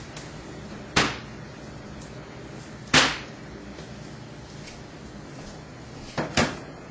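Kitchen cabinet doors being opened and shut while searching for a pot: a sharp knock about a second in, another about two seconds later, and two quick knocks close together near the end.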